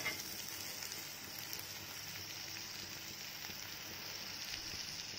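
Oil sizzling steadily in a pan as an onion-and-tomato tempering with red chilli powder fries, a soft even hiss.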